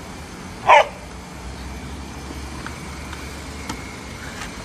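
Steady low rumble of street traffic, with one short, loud sound a little under a second in and a faint click later.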